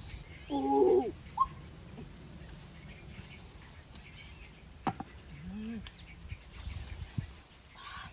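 Birds giving a few short, separate calls, one a brief rising chirp, over low outdoor background noise, with a single sharp knock about five seconds in.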